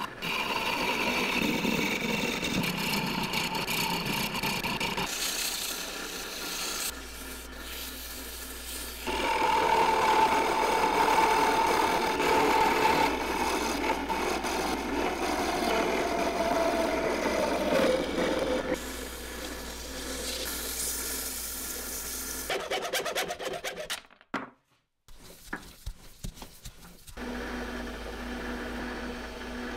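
Wood being turned on a small metal lathe: the cutting tool scraping and shaving a spinning wooden workpiece over the motor's run, with a whining tone that slowly drops in pitch through the middle. The sound changes abruptly several times and drops out briefly near the end, after which a cloth rubs against the spinning wood as a finish is applied.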